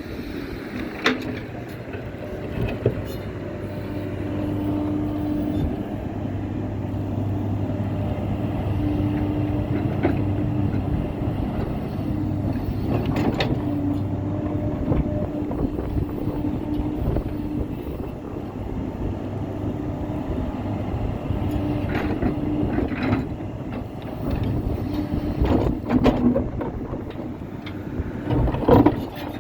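Excavator's diesel engine running steadily, with a few sharp metallic knocks.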